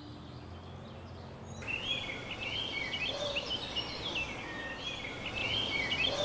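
Woodland songbirds singing, many short chirping and warbling phrases over a steady outdoor hiss, cutting in abruptly about a second and a half in. A low steady tone fades out just at the start.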